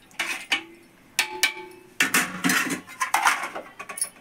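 Metal spoon and lids clinking against aluminium and steel cookware. A few separate ringing clinks come in the first half, then a busier clatter of metal on metal from about halfway through.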